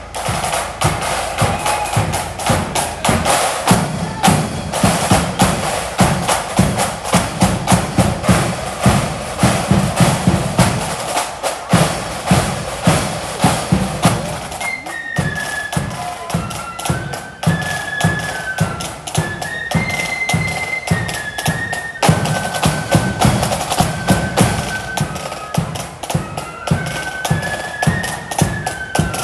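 Marching flute band playing on the move, its drums beating a steady march rhythm. The flutes join with a tune about halfway through.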